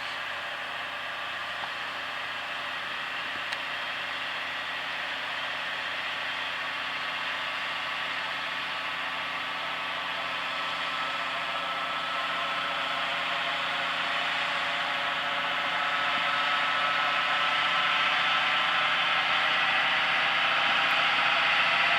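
New Holland TM120 tractor engine running steadily under load while ploughing, growing gradually louder.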